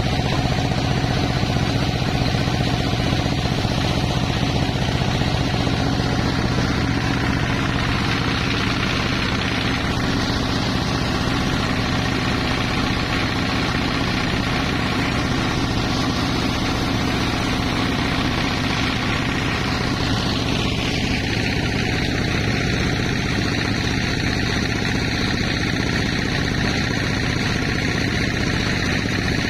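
Sawmill machinery running steadily: a motor-driven saw with a continuous engine-like drone and a higher whine that drops in pitch about two-thirds of the way through.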